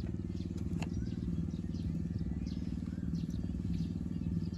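A small engine running steadily at idle, a low even drone, with faint short chirps above it.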